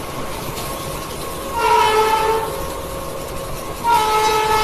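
Train horn sounding twice, a short blast about one and a half seconds in and a longer one starting near the end, over the steady running rumble of a moving Indian Railways passenger train.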